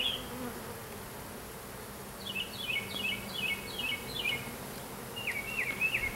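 Honey bee swarm buzzing as a steady hum around the hive box. A bird chirps in short repeated phrases in the middle and again near the end.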